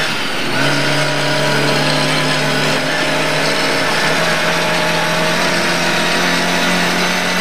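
Lada 1200 rally car's four-cylinder engine heard from inside the cabin, shifting up about half a second in and then accelerating, its pitch climbing slowly and steadily.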